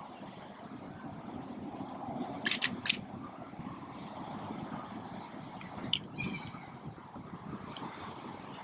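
Camera shutter firing: three quick clicks about two and a half seconds in and a single click near six seconds. Behind them is a steady low background rumble and a thin steady high tone.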